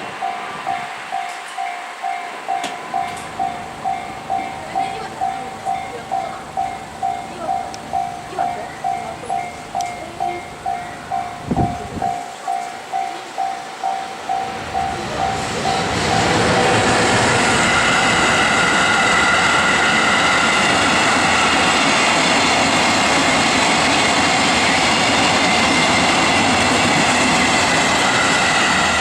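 Japanese level-crossing warning bell dinging at a steady, even pace, with one sharp knock about twelve seconds in. About sixteen seconds in, a train arrives and passes over the crossing with a loud, steady rush of wheels on rail that covers the bell and is still going at the end.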